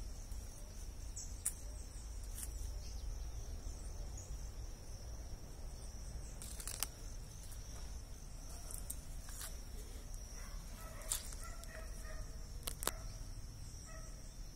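Faint outdoor ambience: a steady high-pitched hum over a low rumble, with a few scattered clicks. A bird calls in short repeated notes through the last few seconds.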